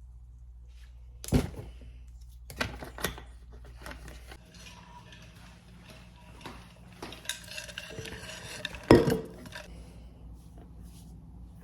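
Handling clatter: a sharp knock, then a quick run of three clinks, and later a busier stretch of clinking that ends in the loudest knock about nine seconds in, over a steady low hum.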